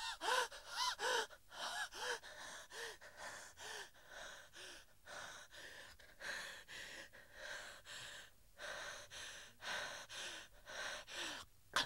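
A young man panting hard in short voiced gasps, about two a second, getting fainter over the seconds: catching his breath after waking with a start from a dream.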